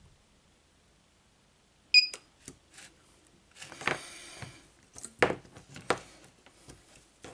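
Portable 18650 battery spot welder firing once about two seconds in: a sharp snap from the weld pulse at the pen tips, with a brief electronic beep. After it come several clicks and knocks as the plastic 18650 cell holder and cells are handled.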